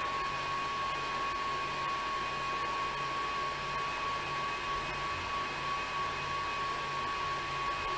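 Indoor cycling trainer whirring steadily under a hard, high-cadence effort, a constant whine over an even hiss.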